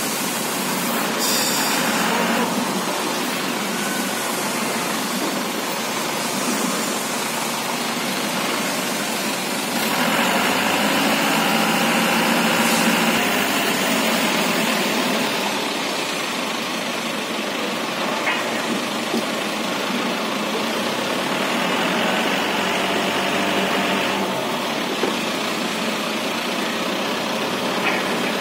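Truck engine running steadily, driving a truck-mounted hydraulic crane. It grows louder for a few seconds about a third of the way in and again later. A few light knocks sound over it.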